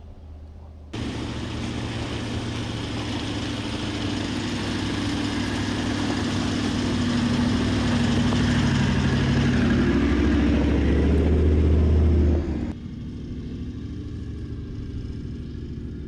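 Toyota LandCruiser 76 series V8 turbo-diesel driving up a dirt track toward the camera, its engine and tyre noise growing steadily louder as it approaches. It cuts off abruptly about 12 seconds in, and a fainter engine sound of the vehicle further off follows.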